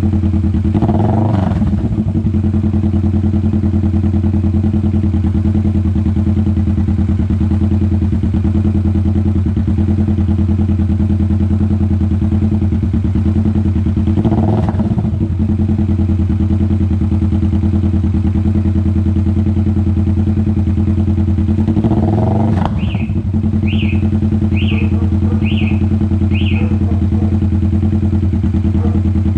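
Kawasaki Vulcan S 650's parallel-twin engine idling steadily through an Orion full-system aftermarket exhaust.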